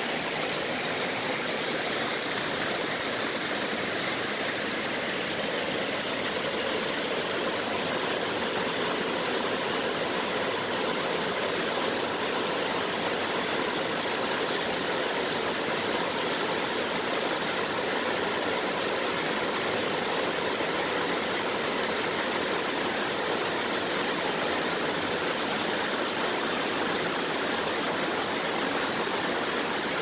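Rushing water of a rocky stream running over boulders and a small waterfall spilling into a pool, as a steady, even rushing noise.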